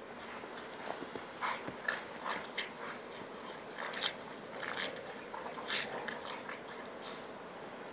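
A Boxer and a Boston Terrier playing in deep snow: scattered short, irregular crunches over a steady hiss.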